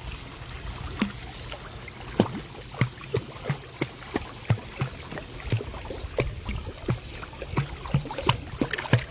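Water sounds: a steady trickle with many small, irregular splashes or drips, several a second.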